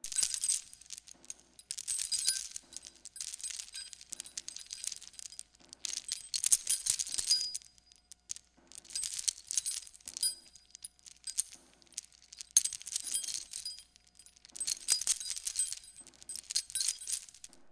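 Metal chain rattling in repeated short shakes, bright clinking links in about ten bursts with brief pauses between them.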